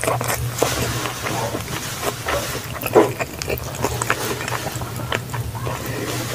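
Close-miked eating: a person chewing food with wet smacking and irregular mouth clicks, the loudest smack about three seconds in, over a steady low hum.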